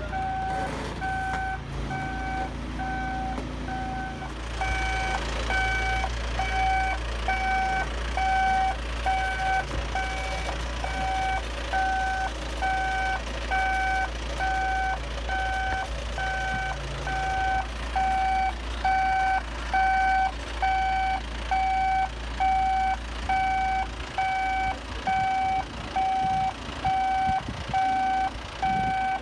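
Reversing alarm of a John Deere 3420 telehandler beeping steadily, about three beeps every two seconds, over the low rumble of its diesel engine. The beeps get louder about four and a half seconds in.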